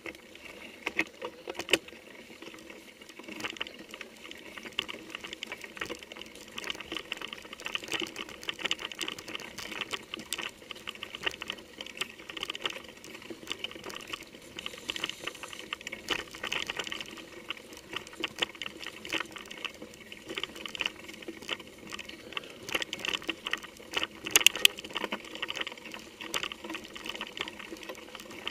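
Mountain bike rattling and clicking steadily as it rolls over a rough, leaf-covered forest trail, picked up by a camera mounted on its handlebar.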